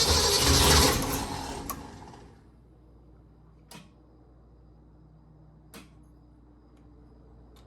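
Rebuilt Ford 331 stroker V8 turning over on a choked start attempt, then dying away about two seconds in. This is followed by quiet, with two sharp clicks about two seconds apart.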